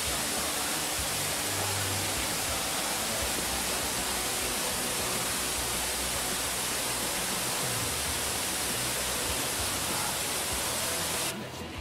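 Waterfall rushing: a steady, even roar of falling water, cutting off suddenly near the end.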